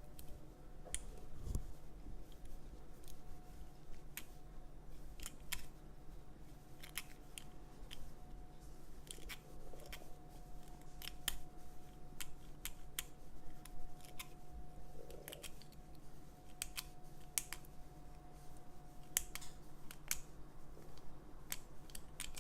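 Irregular small metallic clicks and ticks of a lever pick and tension wrench working the levers inside an ERA Big 6 six-lever padlock while it is being picked.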